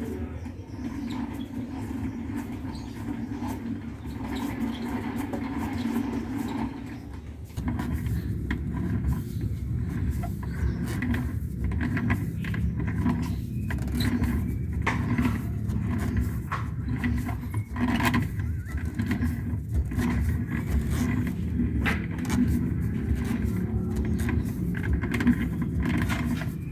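Toyota Avanza on the move, with a steady low rumble and a rapid scraping, rattling 'srek srek' noise from under the car; it grows louder and busier about seven seconds in. The noise comes from a loose, torn propeller-shaft center bearing (hanger bearing).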